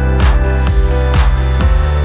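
Electronic dance music with a heavy bass line, held synth chords and a steady beat.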